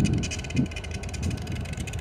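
Diesel-electric freight locomotives of the New York, Susquehanna & Western running as they approach, a low rumble over a steady higher whine, loudest in the first half second.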